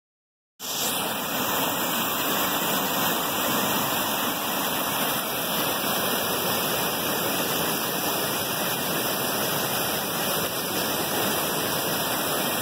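Roar of a flood-swollen stream after heavy rain, with water rushing through and over submerged culverts and cascading in a steady, dense roar. It starts abruptly about half a second in.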